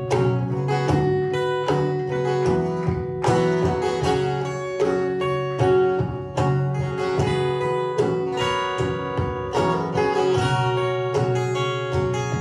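Acoustic guitar playing an instrumental passage, plucked notes ringing over one another.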